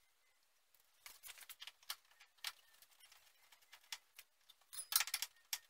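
Light scattered clicks and taps of the plastic grille of a Jeep Cherokee XJ being handled and pressed into place, with a louder cluster of clicks near the end.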